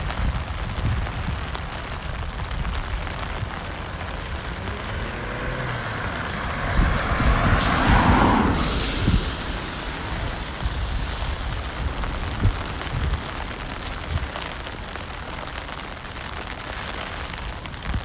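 Steady rain falling on wet pavement and road, with one car passing on the wet road about eight seconds in, its tyre hiss swelling and fading as the loudest moment.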